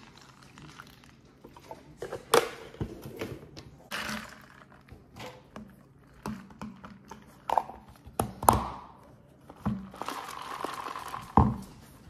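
A plastic cold cup being handled on a stone countertop: a string of separate knocks and taps as it is set down and its lid and straw are fitted, with a rustle lasting about a second near the end.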